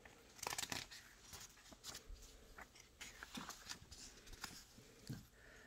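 Faint rustling and small scattered clicks of a picture book's paper pages being turned and handled by hand.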